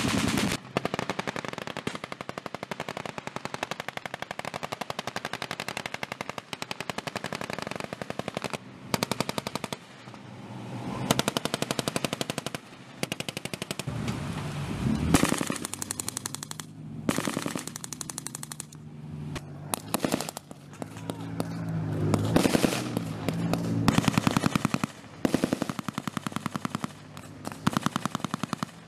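Automatic gunfire in rapid, closely packed bursts with short gaps between them. About halfway through, a boat engine's drone comes in under the shooting for several seconds.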